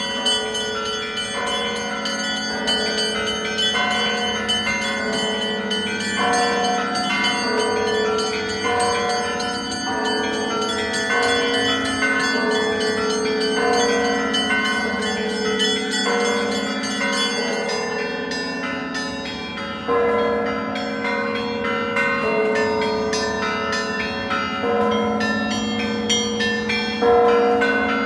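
Russian Orthodox church bells pealing: many bells of different pitches struck in quick, overlapping succession, their tones ringing on into one another. Louder strikes come in about two-thirds of the way through and again near the end.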